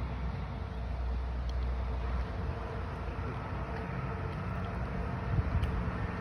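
Steady outdoor background noise with a low rumble underneath and a faint tick or two.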